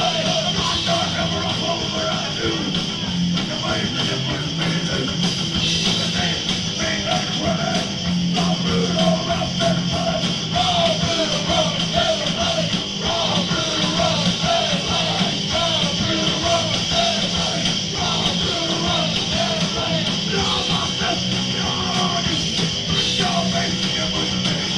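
A punk rock band playing a song live, loud and without a break.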